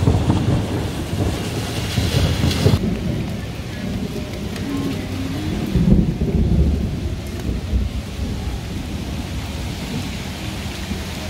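Heavy rain with a low, uneven rumble. The higher hiss of the rain drops away suddenly about three seconds in, and the rumble swells briefly a little past the middle.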